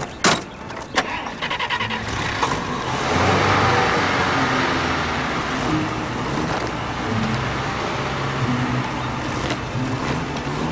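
A car door shuts with a sharp knock and a second knock follows a moment later. Then the car's engine cranks briefly, starts and runs steadily.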